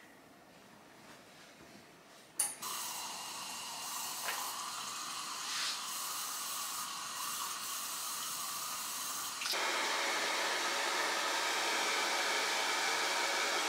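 A click, then a steady rushing hiss; about nine and a half seconds in, a handheld hair dryer switches on to a louder, steady blowing whine and keeps running.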